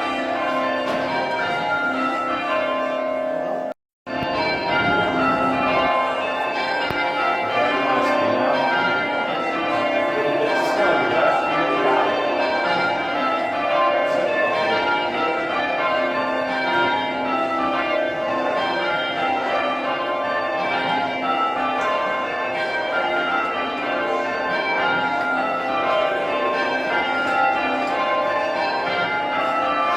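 Church bells rung full-circle in rounds, each bell striking in turn down the scale in a steady, repeating sequence that overlaps into a continuous peal. The sound cuts out completely for a moment about four seconds in.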